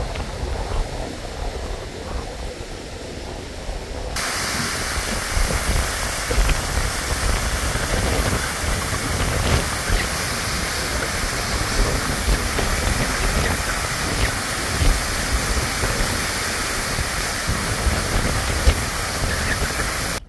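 Muddy flash-flood water pouring over a rocky ledge as a waterfall: a steady, loud rushing that starts abruptly about four seconds in. Before that, a quieter flowing stream with a low rumble of wind on the microphone.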